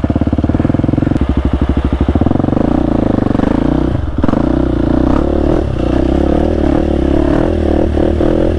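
Husqvarna 701's single-cylinder four-stroke engine chugging at low revs with slow, distinct firing pulses, lugging near stalling. About two seconds in it picks up revs and runs on with a wavering pitch, dipping briefly once.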